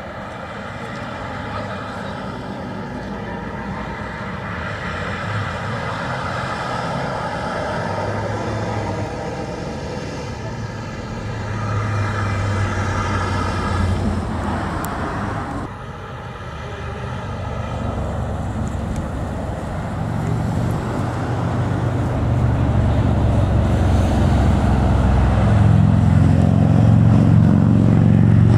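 Road traffic passing on a multi-lane highway, with engine and tyre noise. A low rumble builds and grows louder over the last several seconds as vehicles pass close by.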